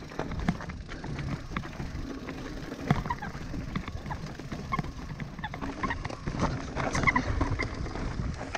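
Mountain bike riding over a rocky trail: tyres and frame rattling and knocking on stone over a low rumble, with a scatter of short high chirps in the second half.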